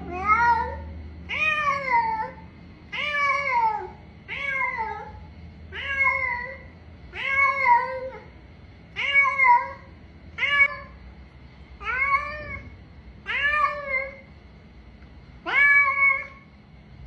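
Domestic cat meowing over and over, calling out after being left alone. There is a call every second or so, each rising and then falling in pitch, some coming in quick pairs.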